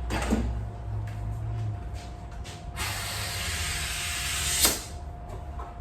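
Air hissing as a bicycle inner tube is given a little air, a steady hiss for about two seconds that swells and then stops sharply, after a brief hiss and a few small clicks of handling near the start.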